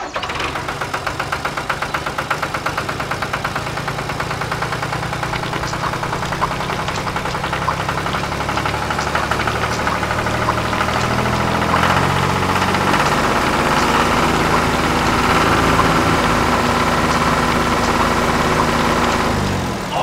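A tractor engine running, beating in quick even pulses at first and then settling into a steadier, louder drone.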